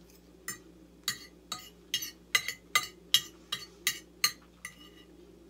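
Metal fork clinking and scraping against a plate as food is gathered up, about a dozen sharp clinks over some four seconds.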